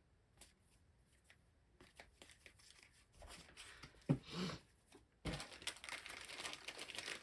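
Plastic wrapping being handled: small clicks, then crinkling and tearing that grows denser and louder from about five seconds in, with a single thump about four seconds in.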